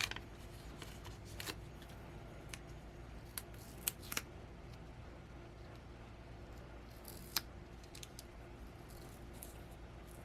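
Hands working a small mounting-kit piece: scattered light clicks and snips, a handful of them, over a faint steady hum.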